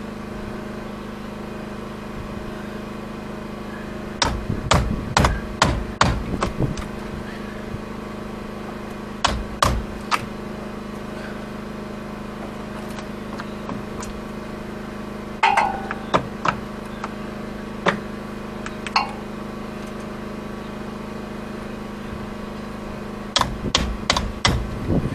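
Hammer striking a chisel driven into a wooden boat's hull planking to knock out rotten planks. The blows come in groups of sharp strikes, the longest run about four seconds in, with pauses of a few seconds between groups.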